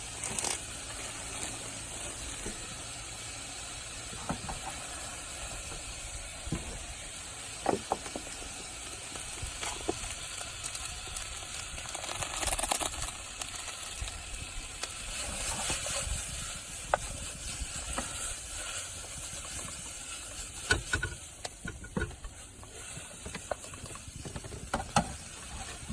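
Steady hissing noise with scattered light clicks and knocks.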